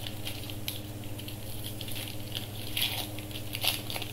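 Foil wrapper of a Mosaic basketball card pack being torn open and crinkled by hand: scattered small crackles, thickest about three seconds in and again near the end, over a steady low hum.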